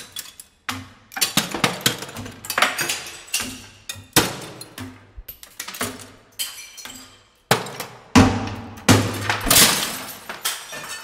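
Glass breaking again and again: a string of sharp crashes, each followed by tinkling shards, with a short pause about seven seconds in before the crashes resume more densely.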